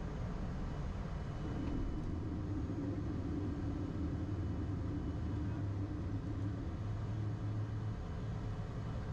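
Steady rumble of engine and airflow noise inside an airliner's cockpit during the climb after takeoff, with a faint droning hum for a few seconds in the middle.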